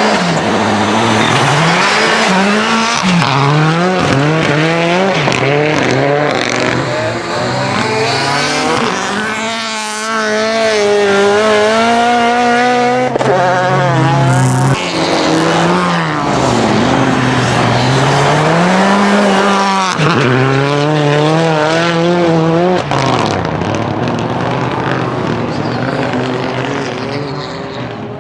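Renault Clio N5 rally car's engine at full throttle, its pitch climbing and dropping over and over as it accelerates and shifts, with several abrupt breaks in the sound.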